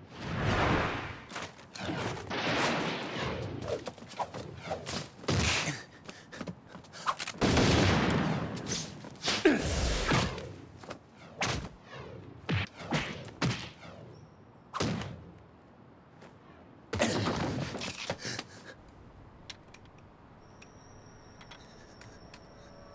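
Gunfire sound effects from an animated fight: volleys of shots with thuds and impacts in several loud bursts, dying down in the last few seconds. A faint, thin, high steady tone comes in near the end.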